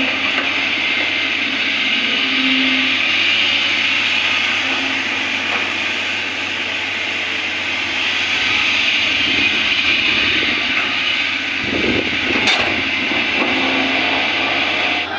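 Hitachi ZX200 hydraulic excavator at work: diesel engine and hydraulics running with a steady harsh noise. A heavier low rumble comes in during the second half, with a sharp knock near the end.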